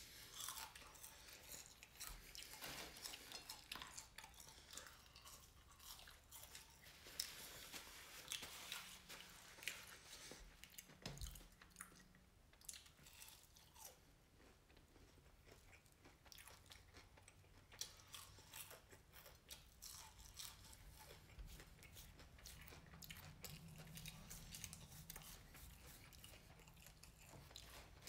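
Quiet chewing and crunching of fried catfish nuggets and french fries, with many small crackles.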